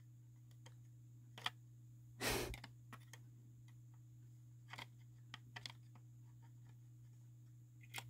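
Plastic cover of a vintage Smoke Sentry 1806 smoke detector being pressed and worked onto its base: a sharp click about a second and a half in, a brief louder scrape just after two seconds, then a few small clicks, with the cover not yet seating. A faint steady hum sits underneath.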